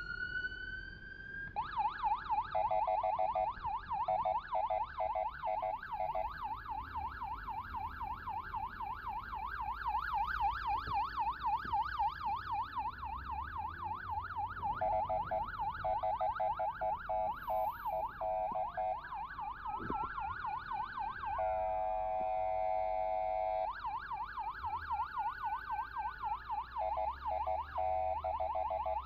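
Electronic siren on an escort motorcycle: a rising wail at the start, then a fast yelp of about four sweeps a second for most of the time, with a slower wail overlapping at times. A steady horn-like tone sounds along with the yelp in stretches and alone for about two seconds after the middle.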